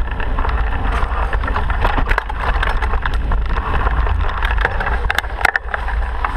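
A vehicle in motion: a steady low rumble and wind noise on the microphone, with scattered rattles and knocks.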